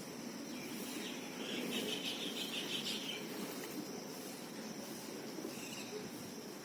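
Outdoor morning birds chirping: a quick run of chirps lasting about a second and a half, then a short call near the end. Behind them runs a steady high-pitched hiss and a low background hum.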